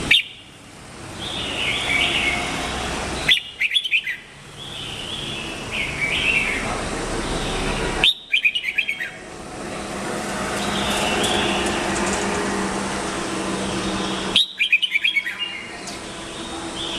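Red-whiskered bulbul singing: four loud bursts of quick, chirpy notes a few seconds apart, with softer warbled phrases in between.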